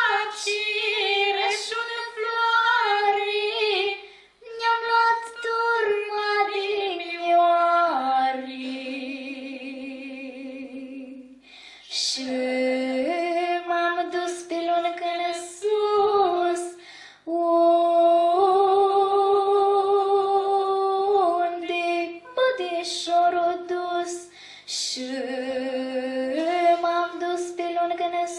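A young girl singing a Romanian folk song solo into a microphone, in long held phrases with short breaks between them.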